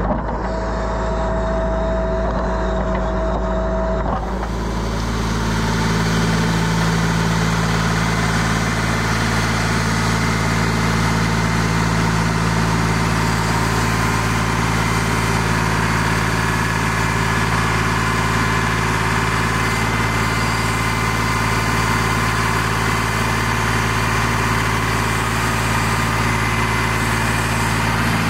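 Heavy machinery engine running steadily, its hum changing to a fuller, slightly louder drone about four seconds in.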